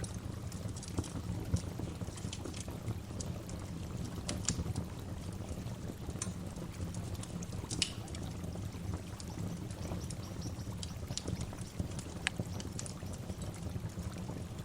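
Waterfall rushing steadily, with short high bird chirps scattered over it, one sweeping down in pitch about eight seconds in.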